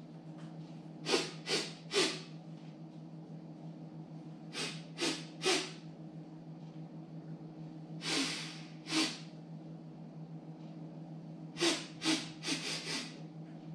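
A man's exaggerated mimed chewing and mouth-smacking noises for a bubblegum vocal warm-up, short noisy puffs in little groups of two to four with pauses between, over a steady low hum.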